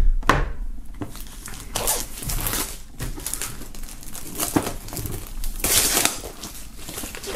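Plastic shrink-wrap film being peeled and pulled off a cardboard box, crinkling and tearing on and off.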